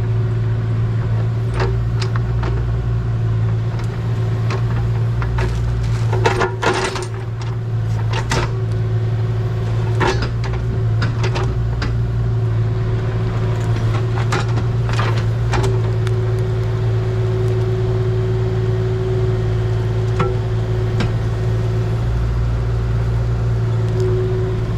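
Kubota KX040-4 mini excavator running steadily under digging load, its engine hum constant, while the bucket knocks and scrapes against roots, dirt and rock in scattered clunks, busiest about six to seven seconds in.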